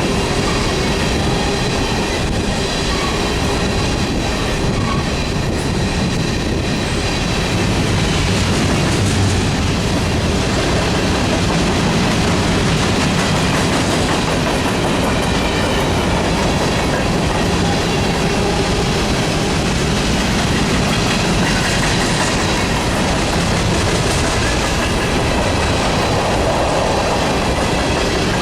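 Freight cars of a grain train rolling past at speed: a steady, loud rumble of steel wheels on the rails with wheel clatter over the joints and a faint high ringing from the wheels.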